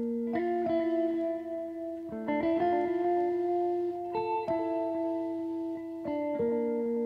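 Background music: slow, sustained chords, with a new chord struck about every two seconds.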